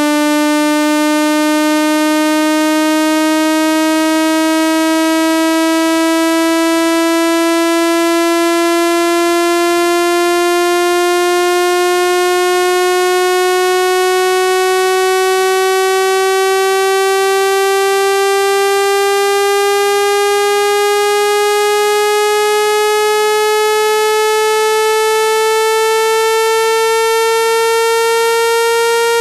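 Synthesized speaker-cleaning tone: one steady, rich electronic note that slowly rises in pitch, played to vibrate sand and dust out of a speaker's grille.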